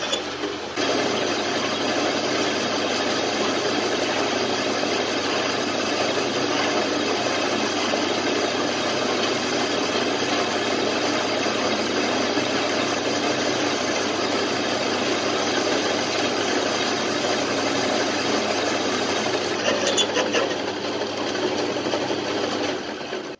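Homemade metal lathe running while a large twist drill bores into the end of a spinning steel bar: a steady, loud machine and cutting noise.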